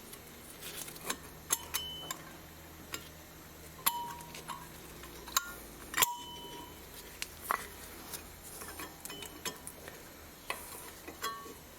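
Metal clicks and clinks of a brake pad and its clip being pushed into the caliper bracket, irregular knocks with a brief metallic ring after some of them.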